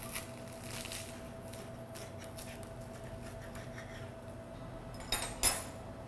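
Metal knife and fork cutting into flaky puff pastry on a ceramic plate: faint small crackles and scrapes, then two sharp clinks of cutlery against the plate about five seconds in, the second the louder. A faint steady hum lies underneath.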